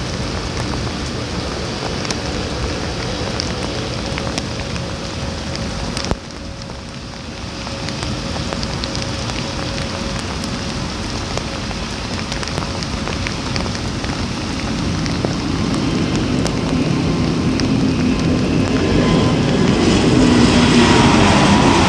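Steady rain hiss with scattered drop ticks, and a narrow-body jet airliner's engines on the takeoff roll, growing louder over the last several seconds with a whine that falls slightly near the end. A sharp click about six seconds in.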